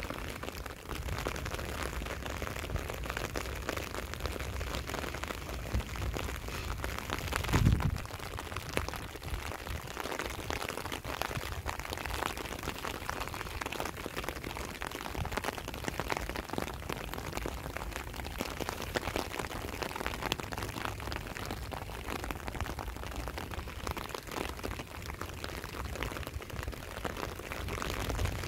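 Steady rain pattering, heard as an even hiss of many fine drops, over a low rumble. About eight seconds in there is one brief, louder low thump.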